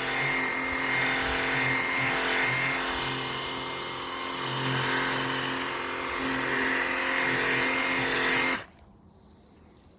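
Cordless battery-powered pressure washer running and spraying through a 25-degree nozzle: a steady motor-and-pump hum under the hiss of the water jet. It cuts off suddenly near the end.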